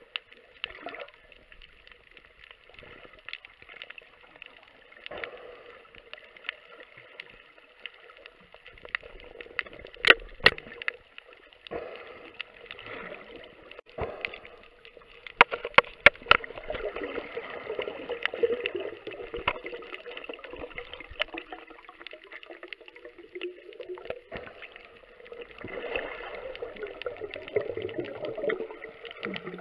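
Water gurgling and sloshing close to the microphone, with several sharp clicks or knocks about ten seconds in and again around fifteen to sixteen seconds in.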